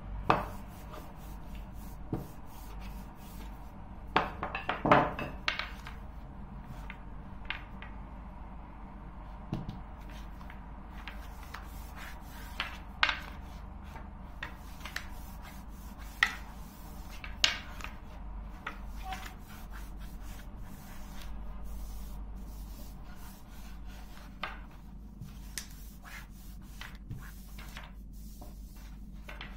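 Long thin wooden rolling pin (oklava) rolling out a sheet of dough on a countertop: soft rubbing with irregular knocks and taps of the wood on the counter, a cluster of them about four to five seconds in.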